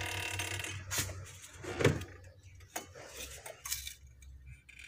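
Metal tools working on a car's disc brake caliper while its piston is pushed back: a short metallic squeak at the start, then a few separate clinks and knocks, the loudest a little under two seconds in.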